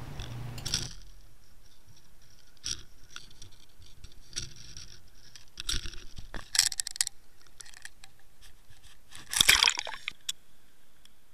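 Small water sounds with scattered light clicks and taps, and a louder rush of water noise about nine and a half seconds in.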